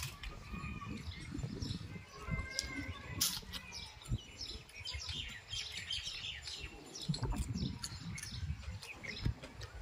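Small birds chirping over and over, many short falling chirps, over close-up sounds of a person eating with his hands: chewing and squeezing fish and rice.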